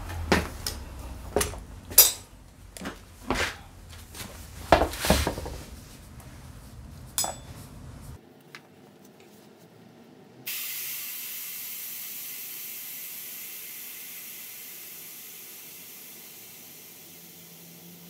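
Metal tools and scooter parts clinking and knocking on a workshop floor as the rear wheel is handled. About ten seconds in, a sudden steady hiss starts and slowly fades: air escaping from the scooter tyre as it is let down for the tyre change.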